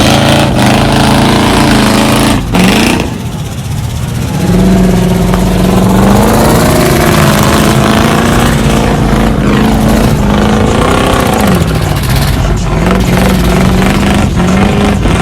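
An off-road vehicle's engine revving hard while driving through mud. The revs drop off briefly a few seconds in, climb again and rise and fall through the rest.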